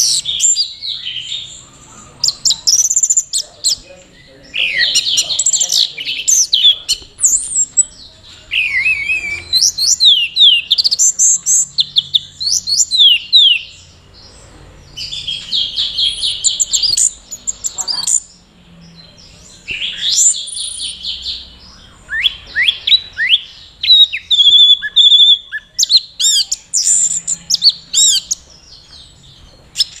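Orange-headed thrush singing in full voice: a long, varied song of rapid chirps, trills and whistled glides, delivered in phrases of one to two seconds separated by short pauses. This is the bird's 'teler' song, sung with the head bowed low, which keepers link to breeding condition.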